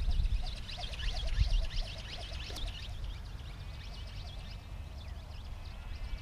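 Wind rumbling on the microphone, with birds chirping rapidly in quick repeated notes that thin out after about three seconds.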